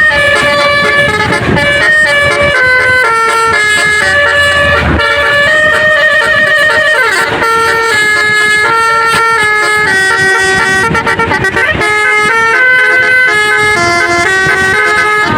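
Basuri telolet bus air horn playing a melody: a loud run of held horn notes stepping up and down in pitch.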